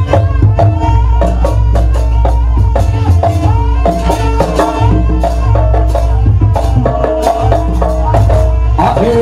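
Jaranan ensemble music: drums and other percussion striking on a quick, steady beat over a deep, steady bass, with held tones and a wavering melody line above.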